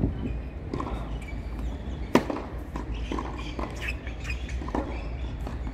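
A tennis ball struck by a racket: one sharp crack about two seconds in, with lighter scattered knocks and taps around it over a low steady rumble.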